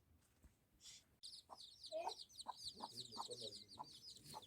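Chickens clucking in short strokes over a dense, high-pitched chirping, starting abruptly about a second in.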